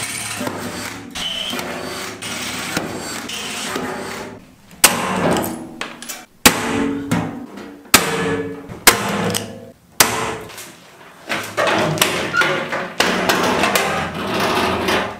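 Cordless drill boring through the sheet steel of an old steel box, then about five sharp snaps roughly a second apart as blind rivets are set to fasten the casters. Near the end, a steady rolling noise as the box is pushed across the floor on its new casters.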